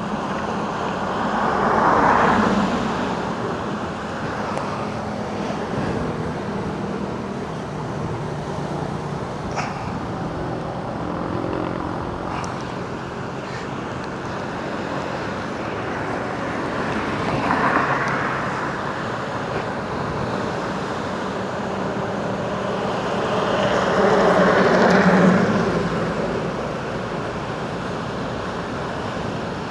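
Steady outdoor rumble of road traffic beside the sea, swelling three times as vehicles go by: shortly after the start, around the middle, and near the end.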